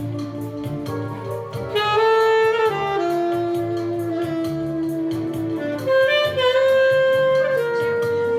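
Background music: a slow melody of long held notes over a steady beat.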